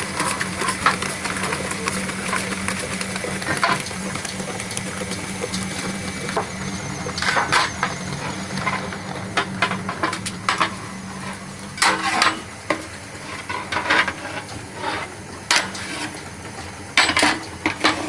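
Metal utensil clanking and scraping against a cooking pot as food is stirred, in irregular strokes that grow more frequent in the second half. A steady low hum runs under the first half and then fades.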